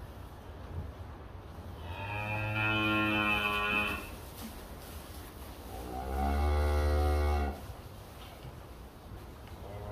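Black Angus cattle mooing twice, each moo about two seconds long, the second lower than the first.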